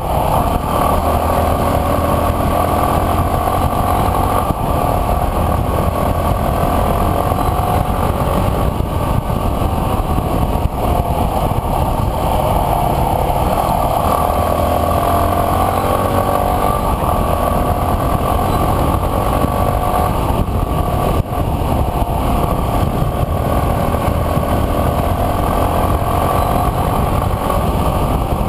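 Enduro dirt bike's engine running while riding, its note rising and falling with the throttle.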